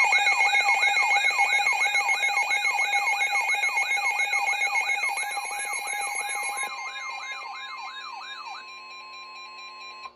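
Electronic emergency alert siren warbling rapidly, about three sweeps a second, over steady tones, the alert lead-in to a tornado warning message. It fades gradually, the warbling stops near the end, and a single steady tone holds for the last second or so.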